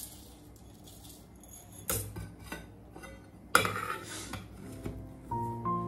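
Metal pots and kitchen utensils being handled, with two louder ringing clanks about two seconds and three and a half seconds in, and lighter clinks between them. Soft background music comes in near the end.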